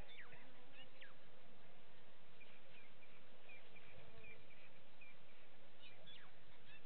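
Birds calling over a steady outdoor hiss: a few sharp notes that sweep quickly downward in pitch near the start and again near the end, with a run of short high chirps in the middle.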